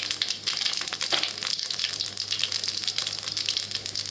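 Mustard and cumin seeds spluttering in hot oil in a kadai for a tempering: rapid, irregular crackling pops over a steady sizzle.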